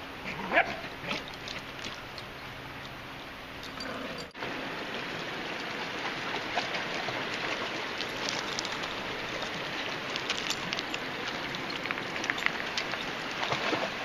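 A dog barks loudly once about half a second in, with a few weaker barks over the next second or so. From about four seconds in, a shallow rocky creek runs steadily while a dog splashes through the water.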